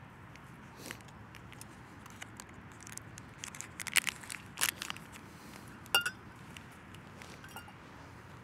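Camping cookware and a mug being handled: scattered light clicks and knocks with some rustling, and one short metallic clink that rings briefly about six seconds in.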